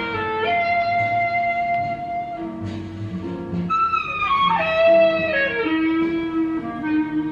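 Instrumental music: a lead melody of long held notes over a bass line, with a slow downward glide about four to six seconds in.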